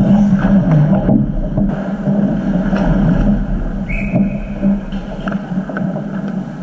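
Ice hockey play close to the net: skates scraping and sticks clacking on the ice over a steady low hum, with a short high tone about four seconds in.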